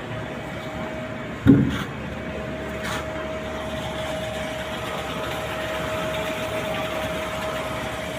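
Machinery running steadily with a constant whine over a broad hum, and a single sharp knock about a second and a half in.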